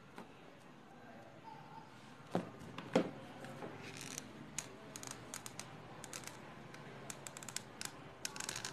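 Two sharp knocks, then a run of light clicks and ticks from a hot glue gun being handled against the work, thickest near the end as the nozzle is put to the joint.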